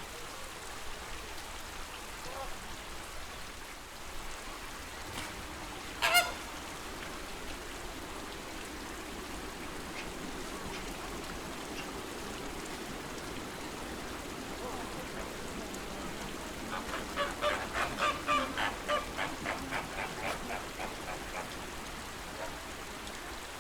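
Flamingos honking over a steady wash of lake water: one sharp call about six seconds in, then a quick run of repeated honks, about four or five a second, for several seconds past the middle.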